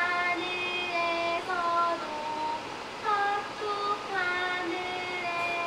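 A young girl singing a slow melody, her high voice holding each note and sliding between them.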